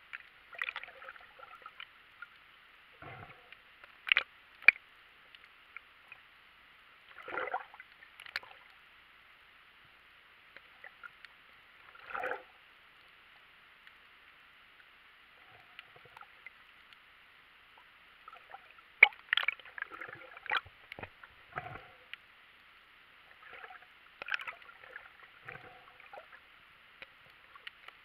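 Muffled underwater sound of a snorkeler swimming: a faint steady hiss broken by irregular sharp clicks and short bursts of water noise, with a cluster of them about two-thirds of the way through.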